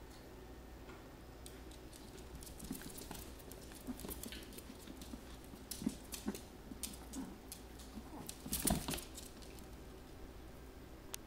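Chihuahuas' sock-covered paws pattering and scrabbling on a laminate floor, with scattered small clicks and a louder scuffle near the end.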